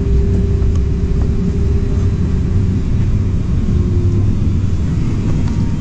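Steady low rumble of cabin noise aboard an Airbus A380, with a faint steady hum that fades out about halfway through.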